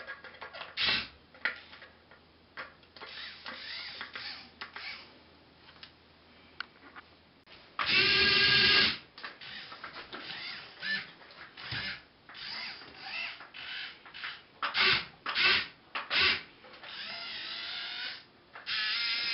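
Small electric motors and gearboxes of a radio-controlled Komatsu PC1250-8 excavator model whining in short stop-start bursts as it tracks, swings and works its boom and grapple. The longest and loudest burst comes about eight seconds in.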